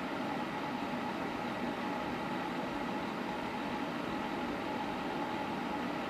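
Electric quartz tower space heater running, with its fan giving a steady whirring hum: an even noise with a few faint steady tones.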